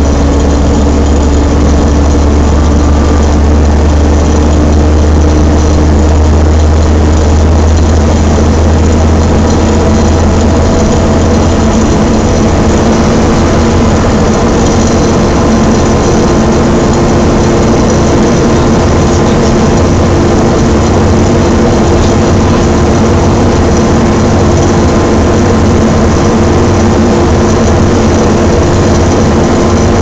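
Volvo B7TL double-decker bus under way, heard from inside the passenger saloon: a steady drivetrain drone with a whine from its Voith automatic gearbox and the hoover-like rush of its engine cooling fan. The deep drone eases about eleven seconds in, and the whine climbs a little in pitch soon after.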